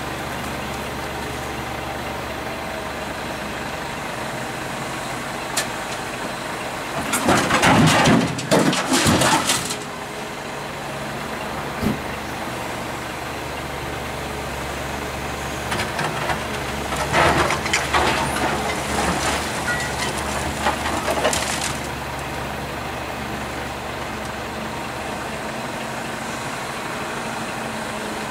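Volvo EC210CL excavator's diesel engine running steadily, with two spells of loud scraping and crashing as its bucket works concrete rubble, about seven seconds in and again from about seventeen seconds.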